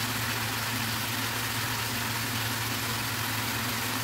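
Beef, cucumber and carrot stir-fry sizzling steadily in a frying pan, over a steady low hum.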